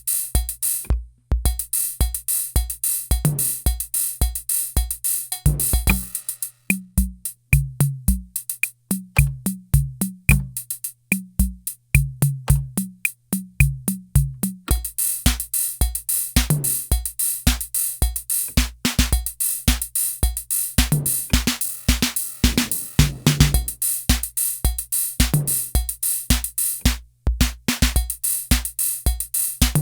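Korg KR-55 analog rhythm machine playing a drum pattern: a steady bass drum with hi-hat hiss over it and pitched drum hits. For several seconds in the middle the hi-hat wash drops out, leaving kick, pitched drums and short ticks, then the full pattern comes back.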